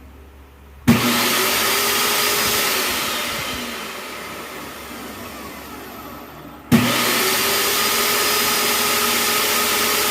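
Lotus 1800 W table saw motor starting twice with a sharp jolt, about a second in and again near seven seconds. The first time it spins up and then winds down with a falling whine while still pressed, because the faulty electromagnetic switch does not hold the power.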